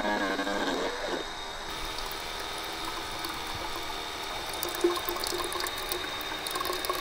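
Battery-powered USB water pump running steadily, sending a thin stream of water pouring into the glass cooking tube of a GoSun Go solar cooker as it fills.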